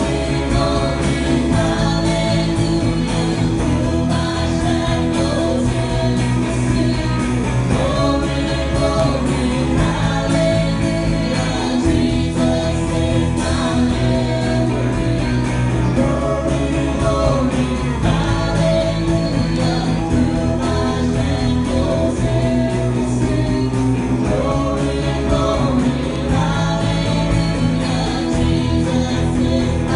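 Gospel worship music with guitar and singing, playing steadily.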